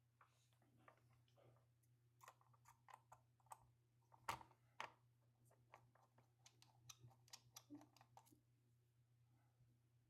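Faint, irregular small clicks and taps of a Sony FX3 camera's parts being handled and worked loose during disassembly, scattered through the middle seconds over a low steady hum.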